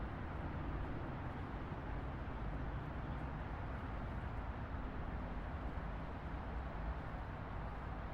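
City street traffic: a steady, even rumble of passing vehicles with no horn or single stand-out event.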